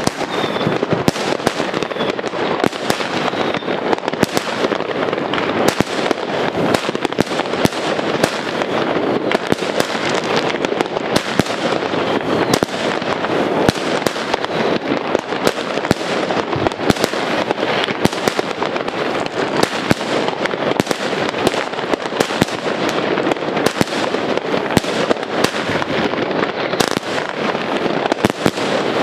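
Vulcan Stingray 25-shot fireworks cake firing: many sharp bangs of shots and bursts over a continuous dense crackle.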